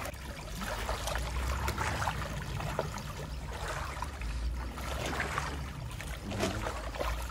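Shallow stream trickling over stones, with scattered small splashes and clicks as fish are picked out of a wet cast net.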